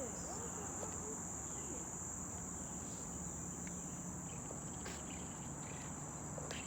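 Insect chorus: a steady, high-pitched drone that runs on without a break.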